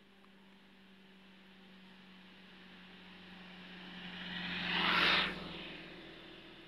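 A motor vehicle passing by: engine and tyre noise growing steadily louder to a peak about five seconds in, then falling away quickly.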